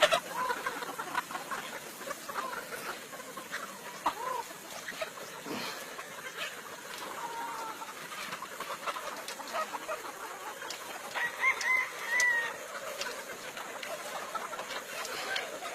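A flock of chickens clucking with short, repeated calls throughout, and a rooster crowing, its louder, higher calls coming about two-thirds of the way through.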